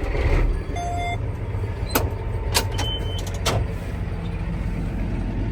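John Deere 9530 tractor's diesel engine running with a steady low rumble, with a short electronic beep about a second in and a few sharp clicks after it.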